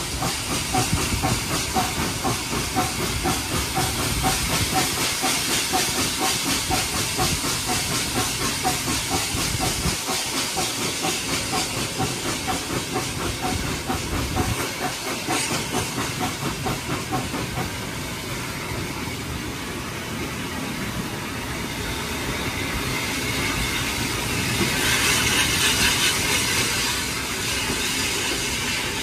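Austerity 0-6-0 steam locomotive hauling the train, heard from a carriage window: a fast, regular beat with constant hiss that fades out about two-thirds of the way through as the train drifts into the station, then a louder burst of hiss near the end.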